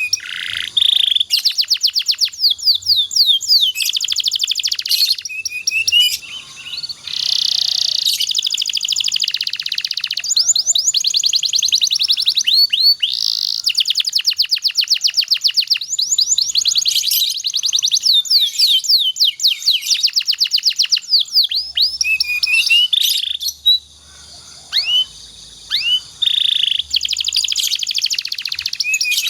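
Domestic canary singing a long unbroken song of fast, high trills and rapid strings of repeated falling notes, with a brief pause about three-quarters of the way through.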